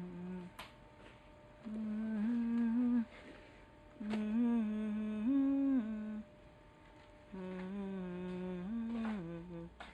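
A man humming a tune without words in three phrases of held notes, each lasting one to two seconds, stepping up and down in pitch.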